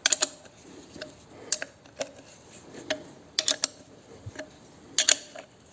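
Irregular light clicks and taps of hard parts being handled as a fuel filter is fitted into its container, about ten sharp ticks spread over several seconds, some in quick pairs.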